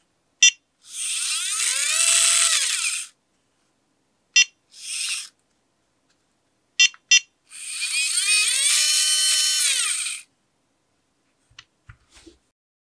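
The 3pi+ robot's small gearmotor spinning up, holding speed and spinning down, a rising-then-falling whine with gear noise, in two runs of about two seconds and one short burst: a test of its newly replaced gearbox. Short beeps come before the runs.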